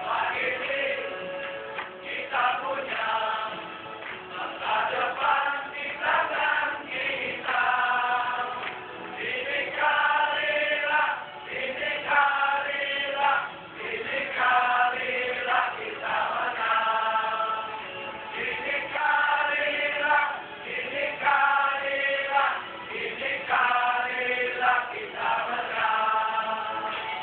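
A political party's campaign song: group singing over music, in sung phrases of a second or two, one after another.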